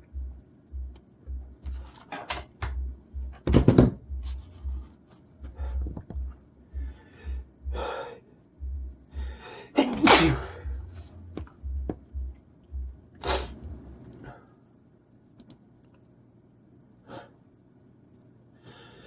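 A man in a sneezing fit: a run of forceful sneezes with sharp inhales between them, two of them much louder than the rest, about a fifth and halfway through, and one more a little after that. A low, irregular thudding runs underneath and stops about three-quarters of the way through.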